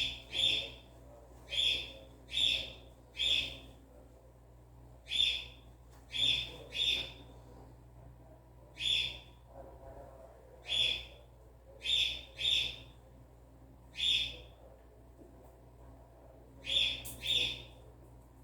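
A bird calling repeatedly: about a dozen short, high chirps, often in quick pairs, with pauses of a second or two between them.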